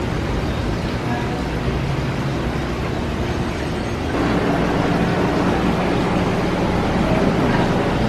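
Steady hum and hiss of aquarium pumps and air bubblers, growing a little louder about four seconds in.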